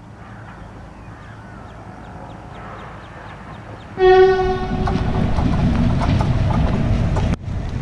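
Quiet outdoor background for the first few seconds. Then an Indian Railways WAP-4 electric locomotive sounds one short, single-note horn blast about four seconds in, followed by the steady rumble of the approaching passenger train.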